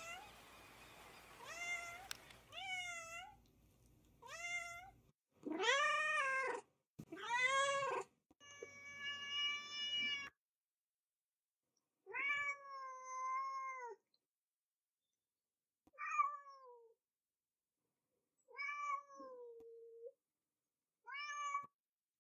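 Domestic cats meowing: about ten meows of varying length, some short and rising-then-falling, some drawn out. They come close together in the first ten seconds and a few seconds apart after that.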